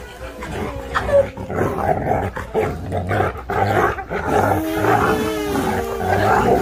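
Dog growling and grumbling in wavering, pitched vocalizations, drawn out into longer rising and falling tones in the second half.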